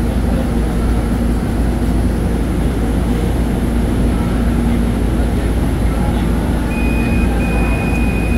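MRT Line 3 train running, a loud steady rumble with a low hum from inside the carriage. A steady high tone comes in about seven seconds in and holds.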